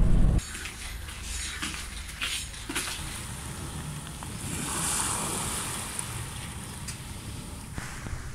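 Small waves washing onto a pebble beach, with a louder wash about halfway through. The first half-second is car road noise from inside a moving car.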